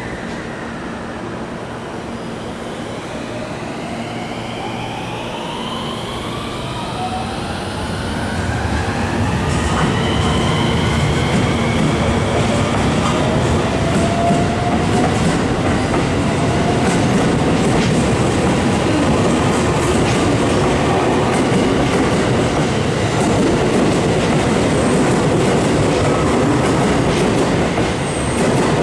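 JR West 223 series electric train pulling away: its motors whine in several tones that rise in pitch as it gathers speed, then the wheels run past louder and louder, clacking over rail joints.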